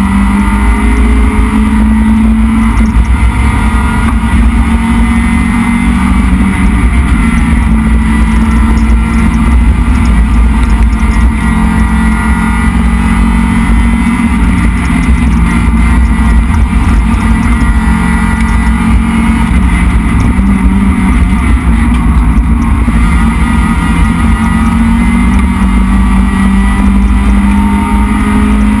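Dodge Neon race car's SOHC 2.0-litre four-cylinder engine heard from inside the stripped cabin, running hard and loud at racing pace, its pitch holding mostly steady with small rises and dips.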